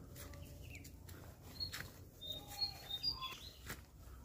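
Wild forest birds chirping: short, high whistled notes and quick falling chirps, clustered about halfway through. Footsteps on a leaf-covered dirt trail are heard between them.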